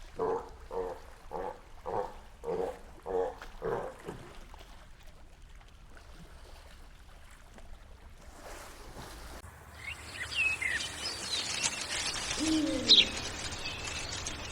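Animal calls: a run of about seven short, evenly spaced pitched calls, then after a quieter stretch, birds chirping with a low falling coo near the end.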